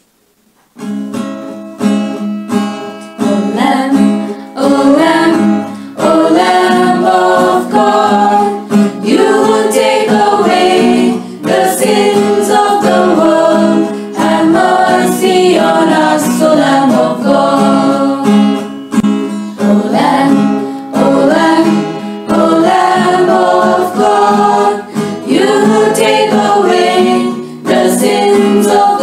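A hymn sung to acoustic guitar accompaniment, starting about a second in after a moment of near silence.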